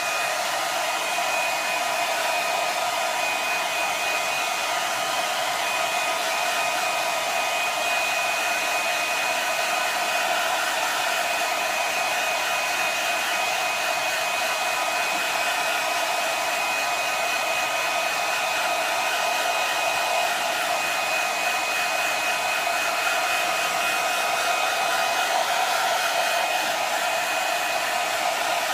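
Hand-held hair dryer running on its cool setting: a steady blowing rush with a thin, high whine that holds unchanged throughout.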